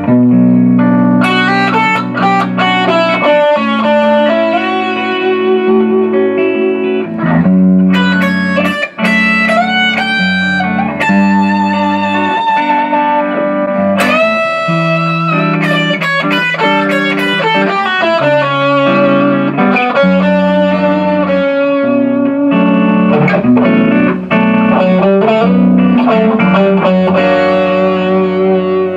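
Electric guitar fitted with a Floyd Rose FRX tremolo, played through an amp: a lead melody of quick single notes with string bends and vibrato over a looped backing of sustained chords that change every couple of seconds.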